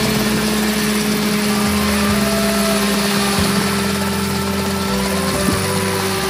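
AW 95 ultralight helicopter running steadily on the ground, its engine and turning rotors making a continuous, even drone.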